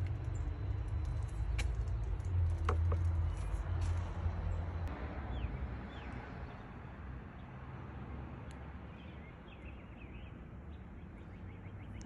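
Low outdoor rumble that fades after about five seconds, with a few sharp handling clicks early on and two short bird chirps about five seconds in.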